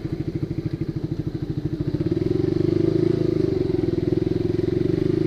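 Honda CB150R's single-cylinder engine running through an aftermarket racing exhaust (a Satria FU silencer), with an even, rapid firing beat that gets louder about two seconds in.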